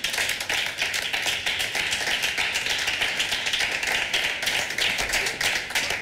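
Applause from a small group of people clapping their hands, starting suddenly and keeping up a dense, even patter.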